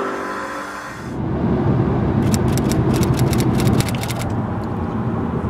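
Road and engine noise inside a moving car's cabin: a steady low rumble, with a quick run of sharp ticks for about two seconds midway. Soft piano music fades out in the first second.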